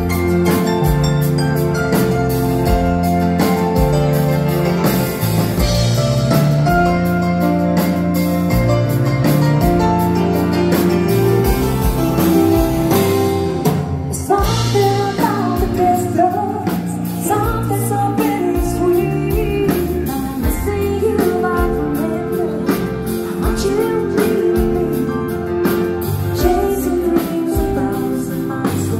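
Live dansband music: a slow ballad played by the band with a singer over bass and accompaniment.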